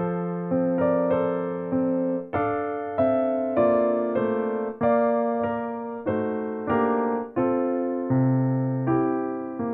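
Slow, calm piano-style keyboard music: notes and chords are struck about twice a second and each is left to ring and fade.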